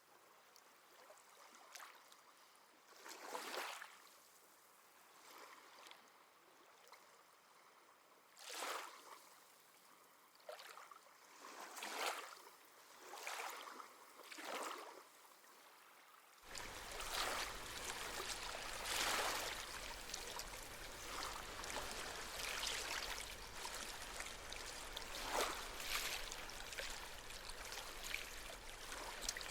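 Small sea waves washing onto the shore, each wash rising and fading on its own. About halfway through the sound turns abruptly louder and continuous, with a low rumble beneath the wash.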